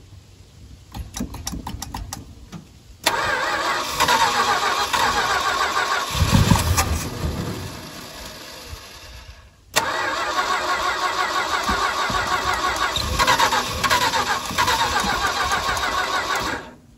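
Starter cranking the engine of a 1969 Dodge D200 pickup on a freshly installed Carter AFB four-barrel carburetor, in two long tries of about seven seconds each, after a few light clicks. A low rumble swells about six seconds in during the first try, but the engine does not keep running, and each try stops abruptly.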